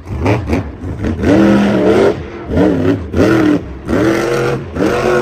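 Monster truck's supercharged V8 revving hard in a string of short throttle bursts, each rising in pitch and then holding.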